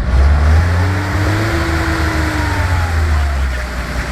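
Off-road vehicle's engine running hard under load, a deep steady drone with a faint whine that rises and then falls about a second in, as the vehicle is driven while people push it.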